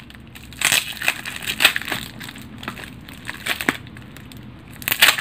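Brown-paper and packing-tape wrapping around a lotion bottle crinkling and crackling in a series of irregular crackles as it is squeezed and picked open by hand.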